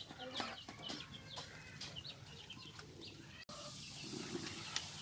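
Chickens clucking faintly in the background, a run of short clucks over the first three seconds or so, then a faint steady hiss after an abrupt break.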